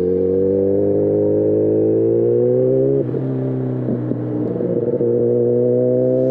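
Sport motorcycle's engine accelerating, its note climbing steadily, dropping at a gear change about three seconds in, then climbing again in the next gear.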